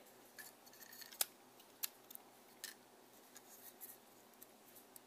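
Faint, scattered plastic clicks and light scraping as the focusing assembly of a Canon EF 50mm f/1.8 II lens is wiggled out of its barrel by hand, its small gears catching on the parts around them; about five separate clicks.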